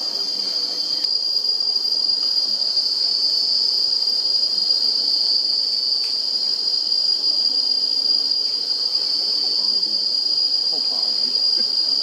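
Continuous high-pitched insect chorus, a steady unbroken drone.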